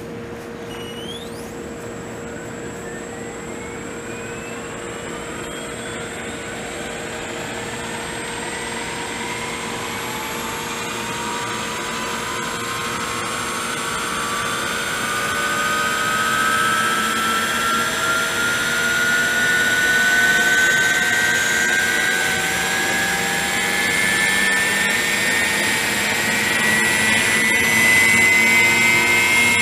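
Vario EC135 scale model helicopter spooling up on the ground: a whine that climbs slowly and steadily in pitch and grows louder.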